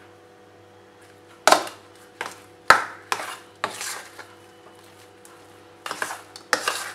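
A steel spoon stirring thick batter in a stainless steel bowl while baking soda is mixed in, knocking and scraping against the bowl in a run of sharp clinks that starts about a second and a half in.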